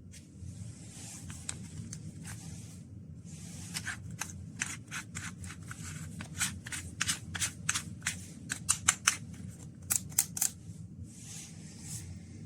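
A run of sharp, irregular clicks mixed with short scraping rustles over a low hum, growing quicker and louder in the middle, with no motor running.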